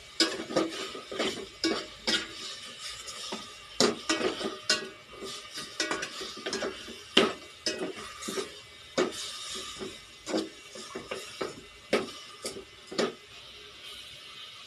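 A spoon stirring and scraping chicken pieces in a metal pot, with irregular clinks and knocks against the pot, over a faint steady sizzle of the chicken sautéing. The clinking stops about a second before the end.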